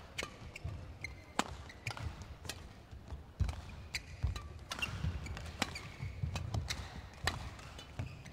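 Badminton rally: sharp racket hits on the shuttlecock, a dozen or so spread through, over players' footfalls thudding on the court.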